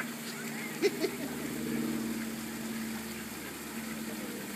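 Steady low mechanical hum, like an idling engine, with two short sharp sounds about a second in.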